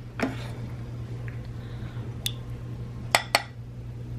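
A ladle scooping thick pureed soup out of a crockpot's ceramic insert into a ceramic bowl. There are soft squishy sounds, and the ladle knocks against the crock and bowl about four times: one clink early, one in the middle and two close together near the end. A steady low hum runs underneath.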